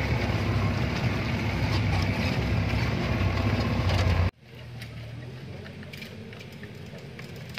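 Motor vehicle engine running with a steady low rumble, which cuts off abruptly about four seconds in. A quieter low engine hum with a few light ticks follows.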